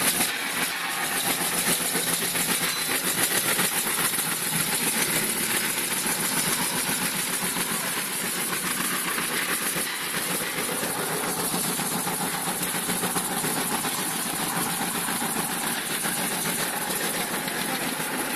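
TYS800 belt-driven wood shaving machine running steadily, a loud even mechanical din topped by a strong high hiss.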